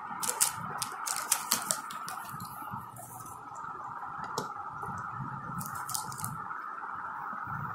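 Plastic play-dough toy tools clicking and knocking together as they are handled, with several sharp clicks in the first two seconds, then soft rubbing and handling as dough is pressed into a plastic tub. A steady high hum runs underneath.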